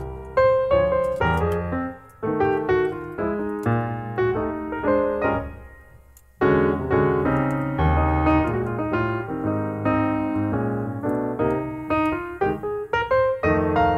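Background piano music playing a melody with chords. It fades down about five seconds in and starts again strongly a little past six seconds.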